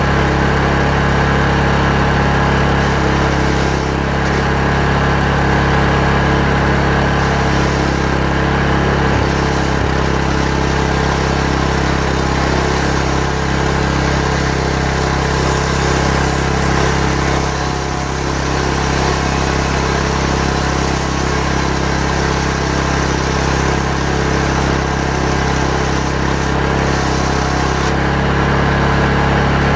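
Chainsaw engine running steadily at one speed while ripping a log of yom wood lengthwise into lumber, with a slight dip about eighteen seconds in.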